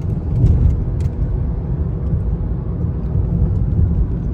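Steady low road and engine rumble heard from inside a moving car's cabin in city traffic.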